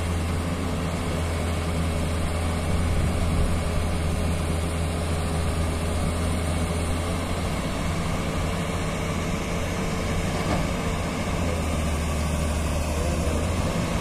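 Tata Hitachi 200 crawler excavator's diesel engine running steadily under a low, even drone while the arm and bucket work.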